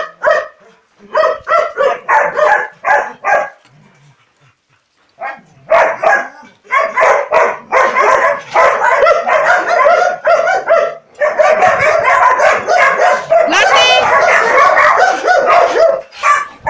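Several dogs barking: a run of separate barks, a pause of about two seconds, then a long stretch of rapid, overlapping barking from more than one dog.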